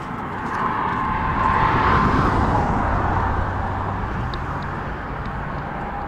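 A road vehicle passing on the bridge beside the walkway: tyre and engine noise swells to a peak about two seconds in and fades away, over a steady background of traffic noise.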